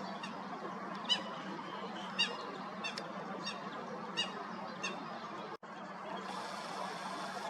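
A waterbird giving short, high-pitched calls, about six in a row at intervals of well under a second, over a steady outdoor hiss. The sound cuts out for an instant about three quarters of the way through.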